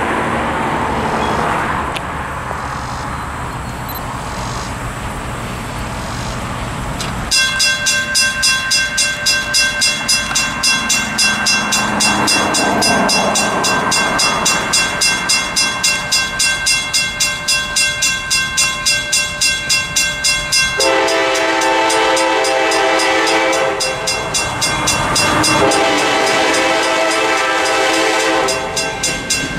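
A grade-crossing signal's mechanical bell starts ringing suddenly about seven seconds in, in rapid even strokes, marking the crossing's activation for an approaching train. From about two-thirds of the way in, an EMD GP38-3 locomotive's horn sounds two long blasts over the bell, warning of the train nearing the crossing. Before the bell there is only a steady low rumble.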